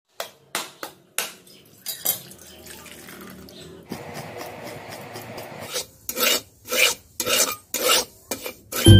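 Kitchen sounds in quick succession: sharp knocks of a blade striking a coconut to crack it, then a steady rasping scrape of coconut flesh being grated, then a spatula scraping in a metal wok about twice a second.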